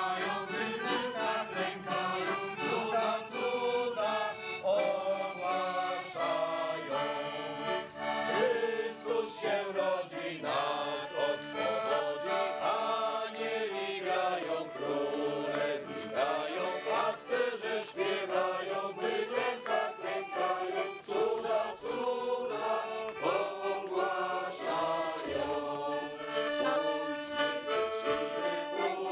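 Piano accordion playing a folk-style melody, with a group of voices singing along.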